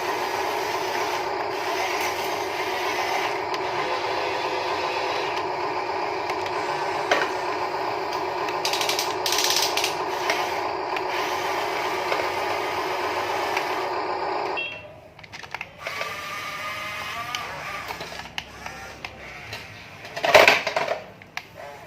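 Motors of a radio-controlled model excavator whining steadily, then cutting off suddenly about two-thirds of the way through. Afterwards come scattered small clicks and a short, loud clatter near the end.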